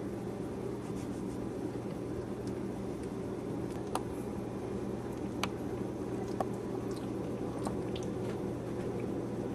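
A steady low hum, with a few faint sharp clicks scattered through the middle.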